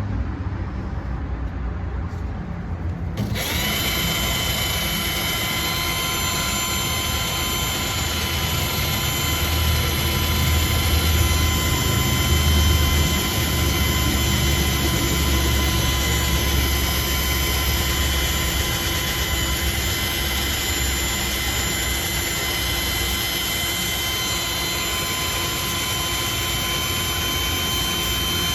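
Electric power tool spinning a wire brush against rusty steel to strip surface rust. It starts about three seconds in with a steady high whine over a rough scrubbing noise and runs at constant speed.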